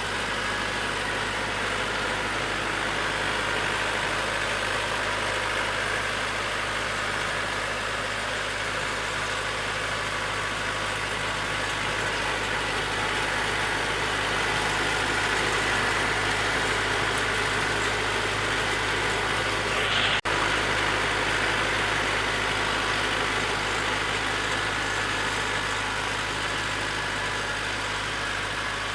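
DW 404 A mini-tractor's engine running steadily under load while driving a rotary tiller through soil, with one brief click about two-thirds of the way in.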